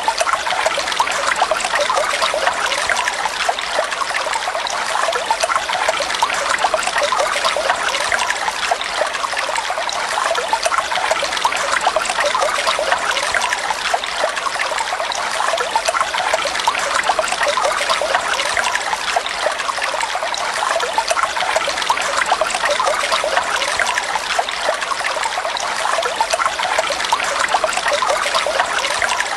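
Flowing water trickling and splashing steadily, an even, unbroken babble with no pauses.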